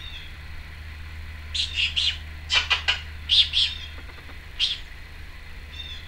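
Timneh African grey parrot giving short, sharp high-pitched chirps in quick clusters of two and three, about nine in all, starting about a second and a half in.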